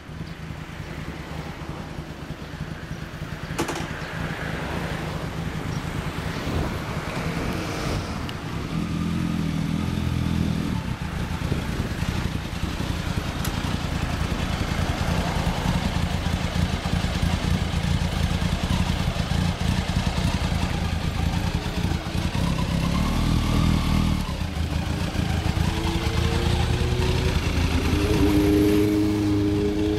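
Kawasaki ZZR1100 (Ninja ZX-11) inline-four engine running through an SP Tadao aftermarket muffler. It is mostly idling, with short revs about ten seconds in and again past twenty seconds, and the pitch rises near the end as the bike pulls away.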